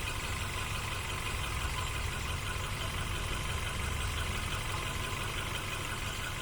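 Hyundai i10 engine idling with an even, unchanging note.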